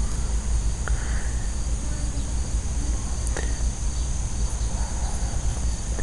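Steady high-pitched insect chorus, with a low rumble underneath and a couple of faint clicks.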